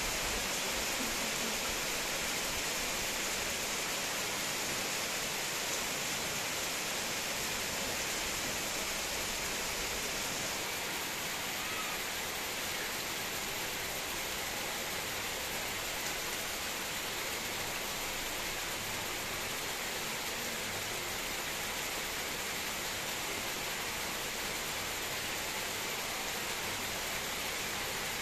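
Steady heavy rain falling on coconut palms and broadleaf tree foliage: an even hiss that eases slightly about ten seconds in.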